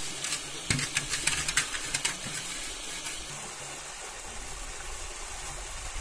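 A large cooking pot being scrubbed and rinsed by hand in shallow stream water: splashing and scraping for the first two seconds or so, then the steady rush of running water.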